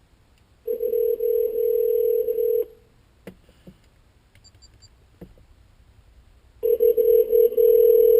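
Telephone ringback tone of an outgoing call, played through the car's Pioneer AVH-8400BH head unit over Bluetooth: a steady low double-pitched ring of about two seconds, silence for about four, then a second ring starting near the end. The call is ringing at the other end and has not yet been answered.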